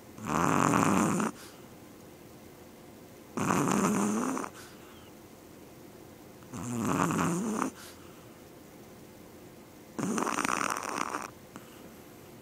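Sleeping teacup Yorkshire terrier snoring: four loud snores, each about a second long, coming roughly every three seconds.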